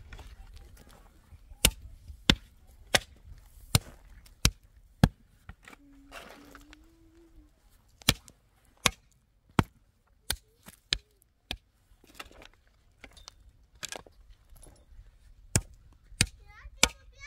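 Repeated sharp chopping blows, about one every two-thirds of a second, in two runs of six with a few more strokes near the end.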